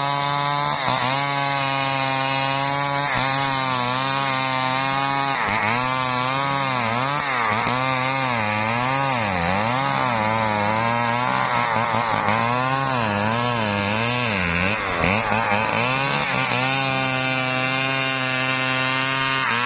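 Two-stroke chainsaw at high revs cutting into teak wood. Its pitch dips and recovers again and again through the middle of the cut as the engine bogs under load, and holds steady at the start and near the end.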